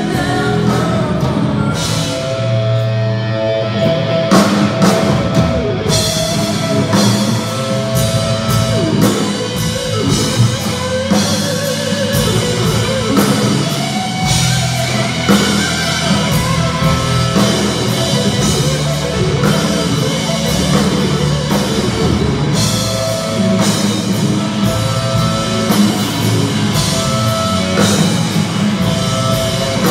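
Live rock band playing loud, amplified: electric guitars over a full drum kit, with a steady beat.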